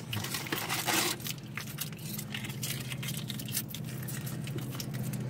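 A plastic mustard packet being torn open and crinkled between the fingers: a run of sharp crackling rustles, densest about half a second to a second in. A steady low hum sits underneath from about two seconds in.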